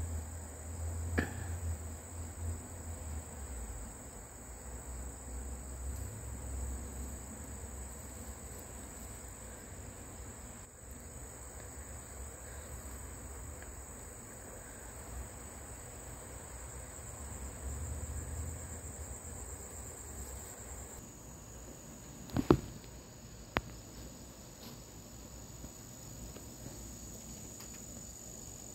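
Steady high-pitched chirring of insects, with two sharp clicks about a second apart roughly three-quarters of the way through.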